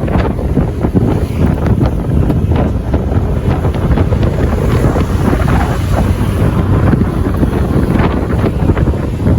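Loud, steady wind buffeting on the microphone of a moving vehicle, with a low rumble underneath.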